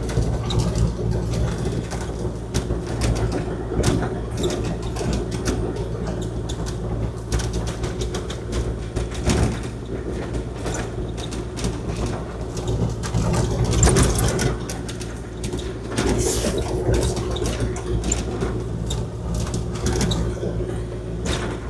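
Kubota KX040-4 mini excavator's diesel engine running at a steady speed while the machine plows snow off a gravel driveway, with irregular knocks and scrapes from the blade working over snow and gravel.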